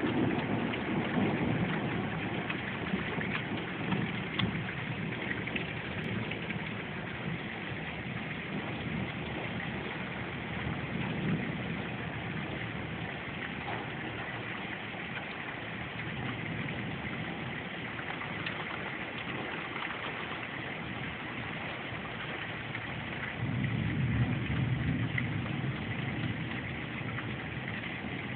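Steady rain with thunder rumbling low at the start, briefly again around a third of the way through, and loudest for a few seconds near the end.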